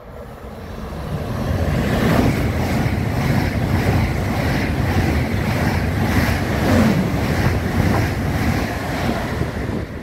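ICE 4 high-speed train running through the station at speed: a loud rushing roar of wheels on rail and displaced air. It builds over the first two seconds, holds with a regular pulsing beat, and falls away near the end.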